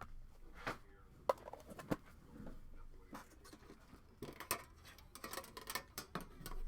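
Rustling and light clicks of trading cards, plastic holders and packaging being handled on a table, scattered at first, then a busier flurry of rustling about four seconds in.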